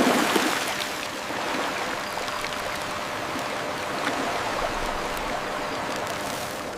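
Water splashing at the start, then settling into steady rushing water, like a stream.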